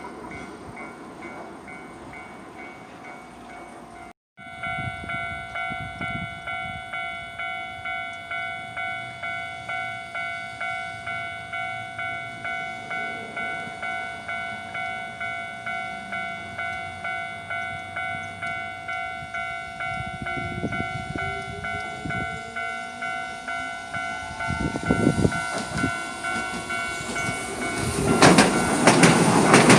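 Level-crossing warning bell ringing steadily at about two strikes a second while a Hiroden tram approaches. The tram's motor whine rises in pitch from about two-thirds of the way in. Near the end the tram passes close by, loud with wheel-on-rail clatter.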